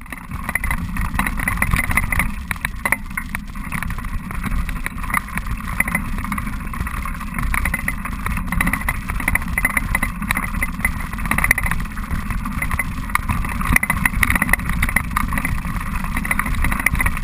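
Wind buffeting the microphone over the steady rumble and rattle of a touring bicycle rolling along a rough dirt track, with many small clicks throughout.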